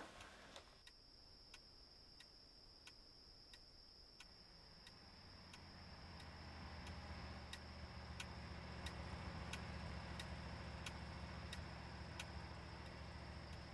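Mechanical alarm clock ticking steadily, about three ticks every two seconds. A low steady hum grows in under it from about five seconds in.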